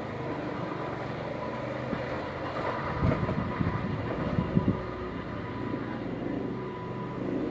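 Diesel-electric locomotive (Indonesian CC206) running at a distance, a steady engine rumble with a faint whine. A few low thumps come about three to five seconds in.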